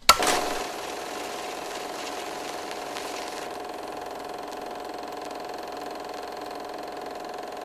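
Closing logo sting: a sharp impact hit right at the start that rings and fades, then a steady sustained drone with several held tones.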